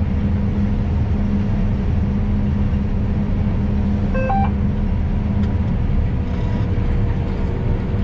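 Combine harvester heard from inside the cab, its engine and threshing machinery running with a steady low drone. About four seconds in, a brief electronic beep steps up in pitch.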